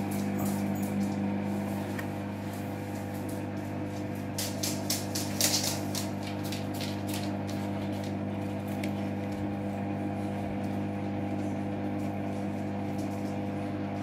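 Front-loading Hoover washing machine running a wash, its motor giving a steady hum while the drum turns and the wet laundry and water slosh inside, with scattered clicks and splashes that are loudest about five seconds in.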